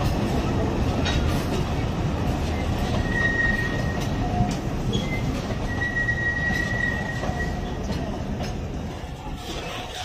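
Alishan Forest Railway train rolling past on curved track, a steady rumble with clicking from the wheels and two long high-pitched wheel squeals, the second longer. The sound fades near the end as the last car pulls away.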